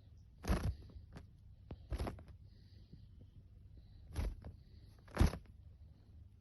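Doves fighting, with sharp wing slaps and flaps: four loud claps about one to two seconds apart, and a few lighter taps between them.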